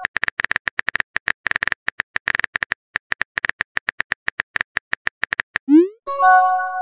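Rapid, irregular clicks of an on-screen phone keyboard as a text message is typed, several taps a second. Near the end a rising whoosh as the message is sent, then a short chime.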